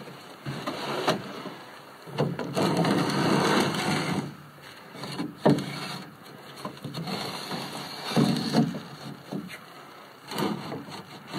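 Movement and handling noise inside a small wooden box blind: irregular knocks and scrapes against the wood and rustling, with a longer stretch of rustling about two to four seconds in.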